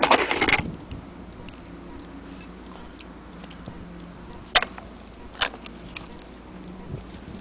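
Handling noise from a dismantled Hermle mantle clock movement: a rustle at the start, then a few sharp clicks, irregularly spaced, as brass plates and wheels are handled. A faint steady hum runs underneath.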